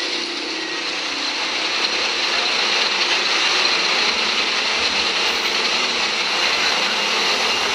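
Steady engine noise from large trucks standing and running, a dense even rush that grows slightly louder.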